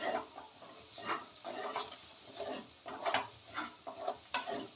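Spatula stirring and scraping chopped onions as they fry in an aluminium kadhai, in uneven strokes about once or twice a second over a light sizzle.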